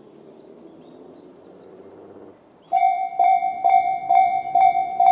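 Japanese level-crossing electronic warning bell of the Tobu 'sound C' type switching on about two and a half seconds in, after faint background hum, then ringing a steady-pitched tone about twice a second: the crossing is warning of an approaching train.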